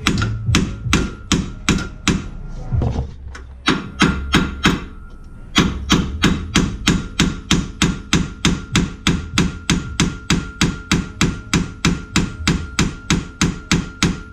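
A 20-ounce mallet striking a nut left on the end of a press-fit suspension bolt, hammering the bolt out. A few uneven blows, a short pause, then a steady run of about three to four hits a second, with a faint metallic ring under them.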